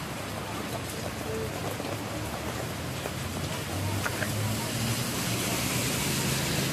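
Heavy rain falling on the street and stall awning, a steady hiss, with the low engine hum of passing traffic growing louder in the second half.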